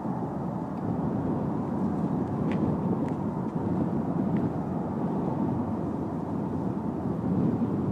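Wind blowing steadily in gusts, a low rushing noise with wind buffeting the microphone, rising and falling gently in strength. A few faint clicks come between about two and a half and four and a half seconds in.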